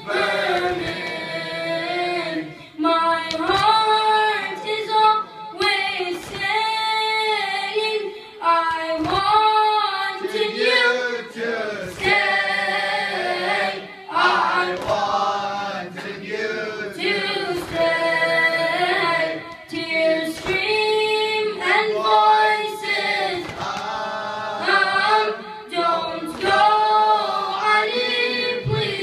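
A boy's voice chanting a latmiya, a Shia mourning elegy, unaccompanied into a microphone, in long, held melodic phrases broken by short pauses for breath.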